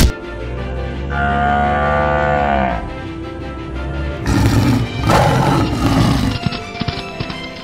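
A long cattle moo that bends downward in pitch at its end, followed a couple of seconds later by two loud, harsh animal calls, over background music.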